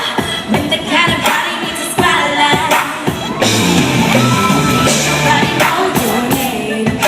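Live pop song with a female voice singing over a full band with a strong bass line, recorded from the audience during a sound check.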